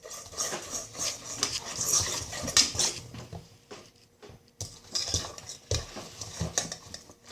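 Fluffy homemade slime being squished and pulled by hand, giving irregular sticky crackles and clicks, with a few light knocks, likely against its bowl.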